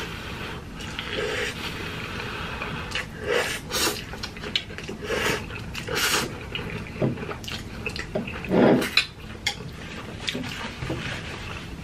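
Close-up eating sounds of spicy instant ramen noodles: irregular wet slurps and chewing, with a few light clinks of cutlery against the metal tray, and a louder slurp about nine seconds in.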